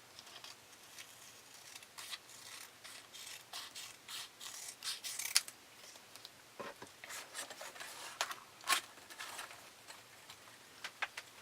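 Scissors cutting out stickers from a sheet of sticker paper: a string of irregular short snips with paper rustling between them.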